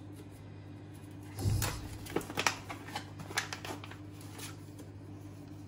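Paper packet of beeswax being torn open and handled: crinkling and rustling, with a soft thump about a second and a half in and a run of sharp crackles over the next two seconds.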